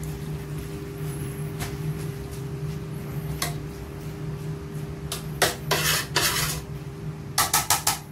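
Metal spoon stirring chopped pork innards in a large aluminium stockpot, clanking and scraping against the pot. A few scattered clinks, then a louder run of clanks past the middle, and four quick clinks near the end, over a steady low hum.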